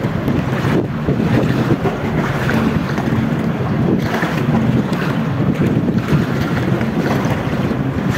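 Strong wind buffeting the microphone, a steady rushing rumble without a break.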